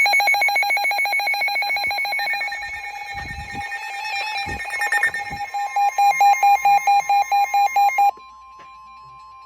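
Several NOAA weather radios sounding their alert alarms together, a loud fast-pulsing beeping in overlapping pitches. About eight seconds in the beeping cuts off and a quieter steady tone begins, the weather radio's 1050 Hz warning alarm tone.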